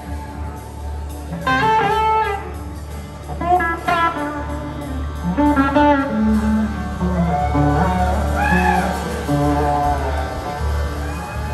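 A live blues-rock band playing an instrumental passage: electric guitars trade bluesy lead phrases with gliding, bending notes over a steady bass line and drums.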